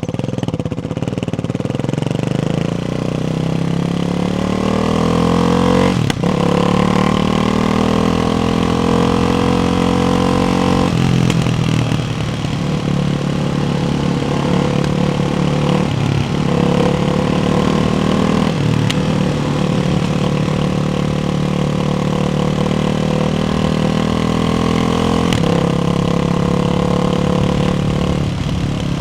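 Ducati Hypermotard 698's single-cylinder engine through a baffled Termignoni exhaust, running at varying revs. The note climbs steadily over the first six seconds, then holds fairly level, broken several times by brief dips where the pitch drops and picks up again.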